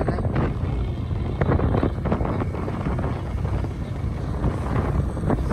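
A moving vehicle's steady low rumble, mixed with wind rushing over the microphone.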